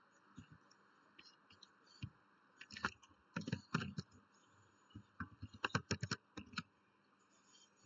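Computer keyboard keys being typed, in two quick flurries of clicks about three seconds in and around six seconds, with a few single key presses between, over a faint steady hiss.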